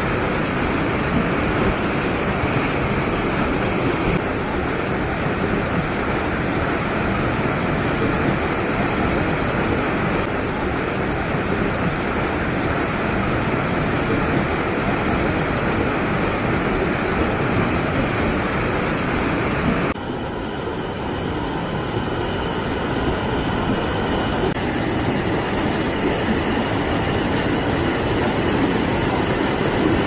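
Ruskeala waterfalls on the Tokhmajoki River: water rushing and splashing over rock rapids in a steady, dense noise. The tone of the noise shifts slightly at a few cuts between shots.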